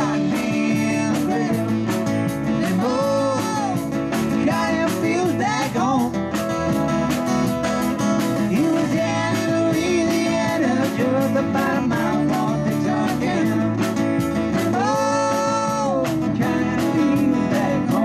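Live band playing: a fiddle carries the melody, with slides, over strummed acoustic guitar and a drum kit keeping a steady beat.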